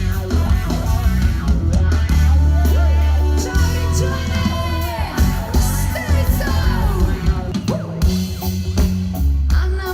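Loud rock-style music: a singing voice over guitar and drums, with a heavy bass.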